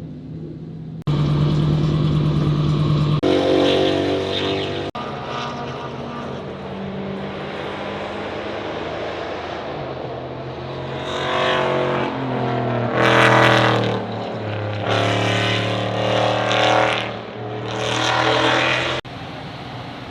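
Race car engines running on track, cut together as several separate clips. In the second half there are four loud bursts where the engine revs climb hard and then drop away.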